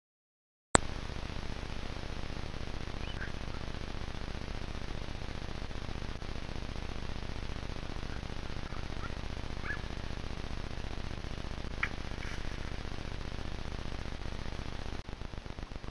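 Steady hiss of a trail camera's microphone, starting with a click about a second in, with a few faint, short, high chirps scattered through it.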